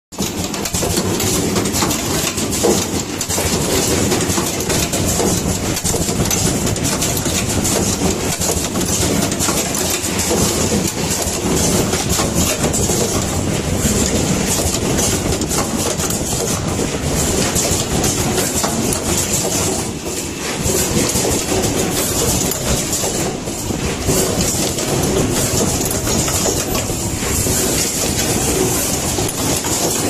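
Automatic power-cord crimping machine running: a steady, dense clatter of small clicks and knocks from its fixture conveyor and crimping stations.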